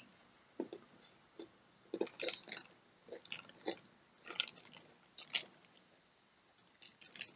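Irregular crunches and crackles from a crisp Petit Beurre butter biscuit being bitten and chewed, mixed with its clear plastic packet crinkling in the hands, the busiest stretch in the middle.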